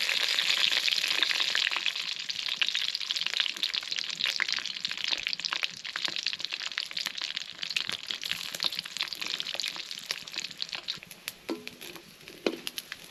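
Food sizzling and crackling in hot oil in a pan. It is loudest at the start and gradually dies down.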